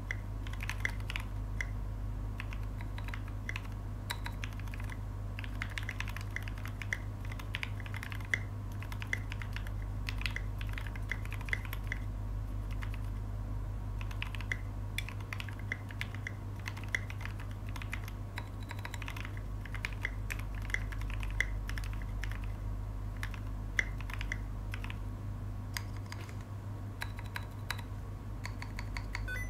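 Typing on a Duck Octagon v3 mechanical keyboard fitted with lubed and filmed vintage Cherry MX Black linear switches and SA-profile keycaps: a fast, continuous run of keystrokes that thins out near the end, over a steady low hum.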